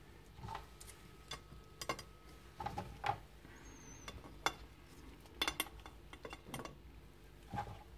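Light, irregular clicks and taps of dishes and cutlery being handled, a dozen or so small knocks at uneven intervals.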